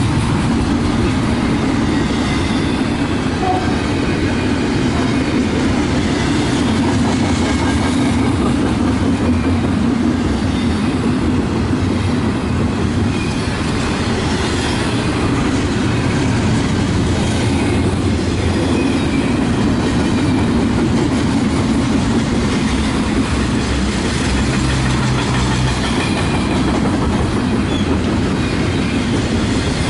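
Double-stack container well cars of a Union Pacific intermodal train rolling steadily past: a loud, continuous low rumble and clatter of steel wheels on the rails.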